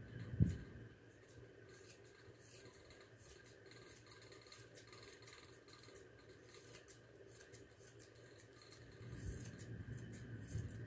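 Grooming shears snipping through a standard poodle's coat: many short, crisp cuts in quick irregular runs. There is a single dull thump about half a second in.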